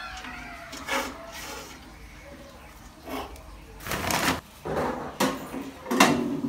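Irregular clunks, knocks and rustling as boiled rice dough is handled and pressed into the stainless-steel bowl of a dough-kneading machine that is not yet running, with the loudest knocks about four and six seconds in.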